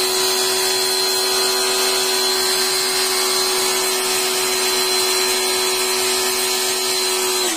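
A small electric motor, like a power tool's, running at a steady speed: a steady whine over a hiss that starts to wind down at the very end.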